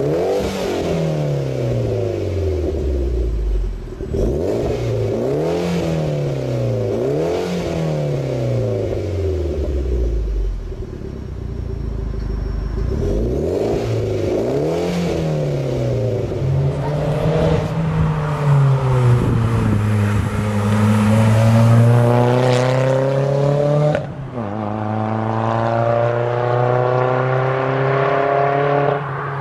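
Mitsubishi Lancer Evolution X's turbocharged four-cylinder blipped again and again at standstill through a Greddy Spectrum Elite exhaust and test pipe, each rev rising and falling back to idle. About halfway through it gives way to a Nissan 200SX accelerating hard, its engine note climbing, dropping sharply at a gear change and climbing again.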